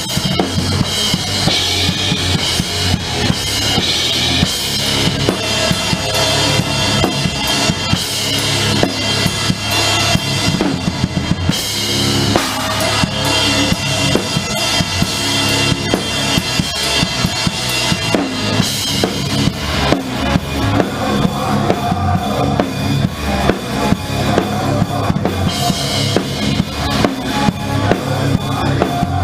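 Heavy rock band playing live, with the drum kit up front: bass drum and snare hit hard and steadily under the rest of the band.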